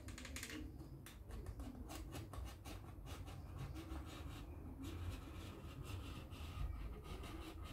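Utility knife blade cutting through a sheet of leather along a traced line, heard as faint, quick runs of scratchy ticks.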